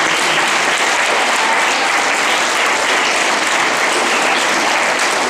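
Audience of schoolchildren applauding steadily.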